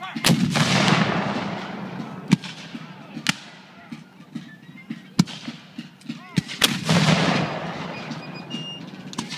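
Civil War field artillery cannon firing blank charges: two heavy booms, just after the start and again about seven seconds in, each followed by a long fading rumble. Several sharper single gunshots crack in between.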